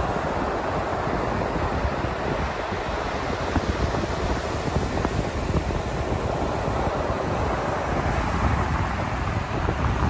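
Atlantic ocean surf breaking and washing up a flat sandy beach, a steady rushing wash of waves, with wind buffeting the microphone as a low rumble.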